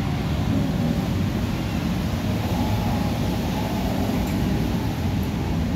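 A steady low rumble of background noise, with no distinct event standing out.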